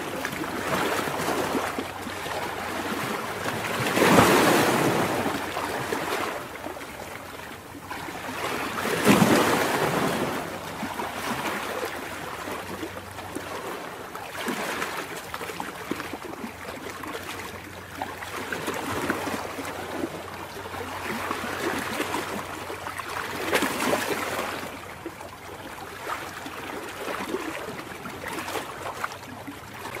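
Ocean surf breaking and washing around rocks along the shore, a steady rush of water that swells as each wave comes in, loudest about four and nine seconds in.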